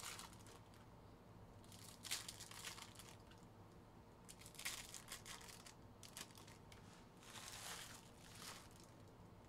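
Faint crinkling and rustling of a foil trading-card pack wrapper and cards being handled, in scattered short bursts.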